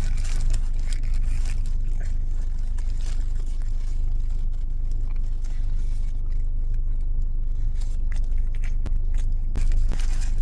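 Close-up eating of fast food: biting and chewing with clicks and scrapes from handling the food and its packaging, over a steady low rumble.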